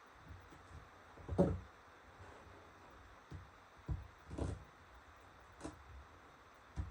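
A few separate soft knocks and clicks as a laptop display panel is handled and pried apart with small tools, the loudest about a second and a half in.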